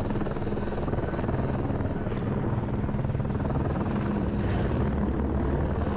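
Helicopter running steadily: a fast, even rotor beat over a constant low engine hum.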